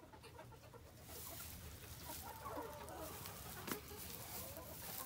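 Chickens clucking softly in short, wavering calls, most of them in the middle of the stretch, with a single sharp knock just after.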